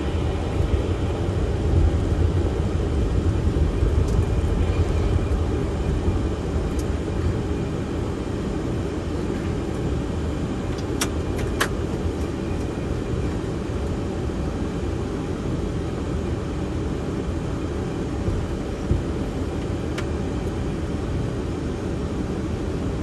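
Steady low rumble of a Boeing 737-500's cockpit during taxi: its CFM56 engines at idle, with airflow and the rumble of the wheels rolling over the taxiway, under a faint steady hum. Two sharp clicks sound about 11 seconds in.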